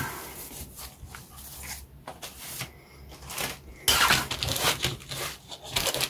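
Light rustling and taps of plastic model-kit sprues being handled, then from about four seconds in a louder crinkling of the clear plastic bag that a sprue is sealed in.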